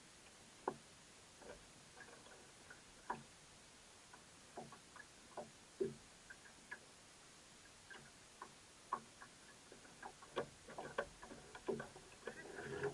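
Irregular light clicks and taps, coming more often in the last few seconds.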